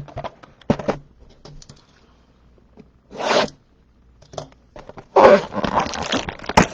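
Trading-card boxes and sleeved cards being handled on a table: light clicks and taps, a short rustle of packaging about three seconds in, then a longer spell of tearing and rustling packaging from about five seconds in as a sealed card box is opened.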